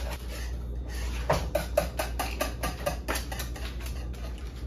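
Wire whisk beating thick pastry cream in a metal saucepan, its wires clicking against the pan about four times a second.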